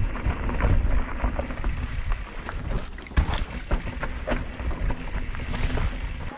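Wind buffeting the microphone while riding an e-mountain bike, with a low rumble and frequent short knocks and rattles from the bike rolling over rough ground.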